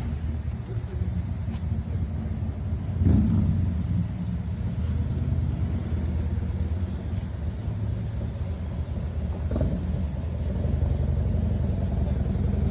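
Engine of a 4x4 camper van idling with a steady low hum, with a brief louder surge about three seconds in.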